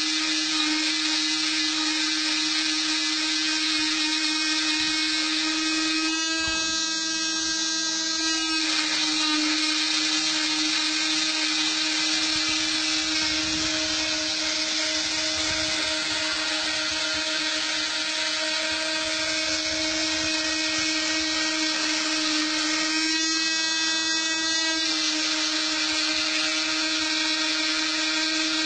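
Homemade mini CNC machine running: a steady motor whine over a hiss. Twice, about six seconds in and again near the end, its tone changes for about two seconds.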